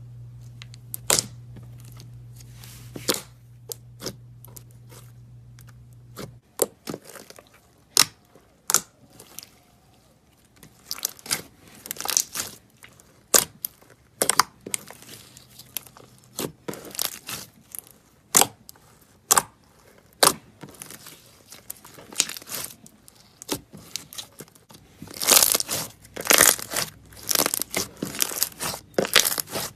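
Slime being squeezed and poked by hand, giving irregular sharp pops and clicks that come thicker and louder near the end.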